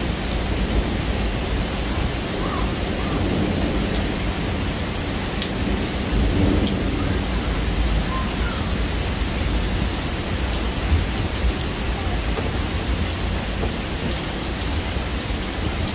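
Steady rain from a thunderstorm with a low rumble of thunder beneath it and a few sharp drip ticks.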